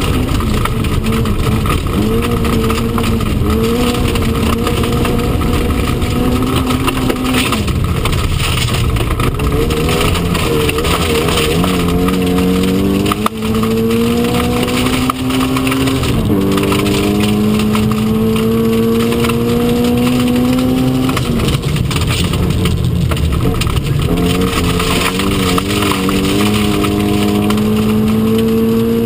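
Mk1 Mini Cooper S's four-cylinder A-series engine driven hard at rally pace, heard inside the cabin: the revs climb, drop with two quick upshifts about halfway through, fall away near two-thirds in and climb again. Constant rough tyre and stone noise from the loose stage surface underneath.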